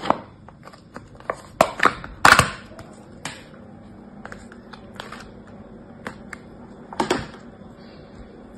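Small plastic slime tub being handled and its lid pressed and pulled off: a series of sharp plastic clicks and snaps, the loudest about two seconds in, with fainter ticks after and one more snap about seven seconds in.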